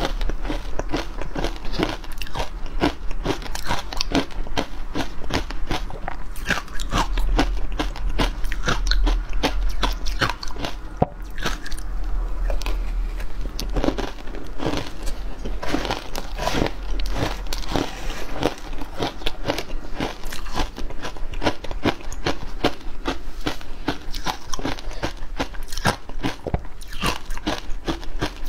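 Frozen matcha ice being bitten and chewed, a dense, continuous run of sharp crunches and cracks, several a second, without a pause.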